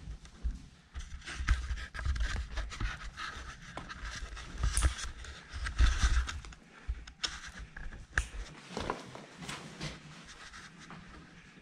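Heavy panting breath and the scraping and rustling of a person crawling over rock rubble, with scattered knocks and clicks of hands and gear on stone.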